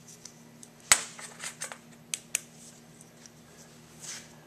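Light clicks and taps of a screwdriver and a cast carburetor body being handled, with one sharp click about a second in and a few lighter ones after. A faint steady low hum runs underneath.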